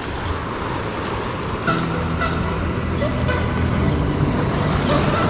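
Sea surf washing over rocks, joined about two seconds in by a steady low motor hum, with a few sharp clicks.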